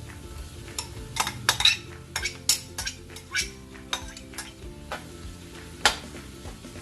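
A cooking utensil scraping and knocking against a pan as ground beef is stirred and fried with sautéed onions and garlic, under a low sizzle. Irregular sharp clinks throughout, the loudest a single knock near the end.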